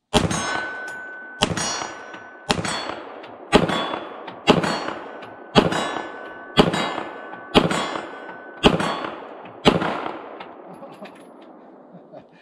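Canik SFx Rival 9mm semi-automatic pistol fired ten times at a steady pace, about one shot a second, each shot followed by the ring of a 25-yard steel plate being hit; the last shot is a miss.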